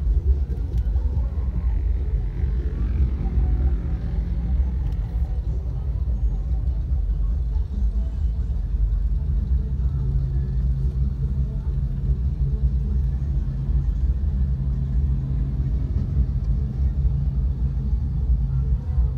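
A car's low, steady rumble heard from inside the cabin while idling and crawling in stop-and-go traffic.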